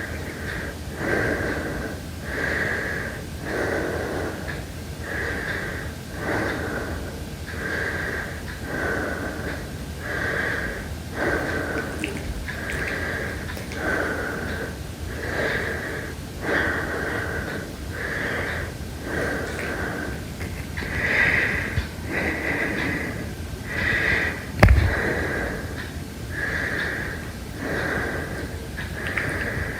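A person breathing heavily and rhythmically, about one breath every second and a half, with a thin steady whistling tone running under it. One sharp knock sounds near the end.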